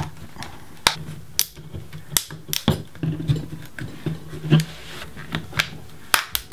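Sharp, irregular clicks and cracks of a sonically welded plastic laptop battery case being pried apart along its split line with a small flat screwdriver, about ten snaps spread over several seconds.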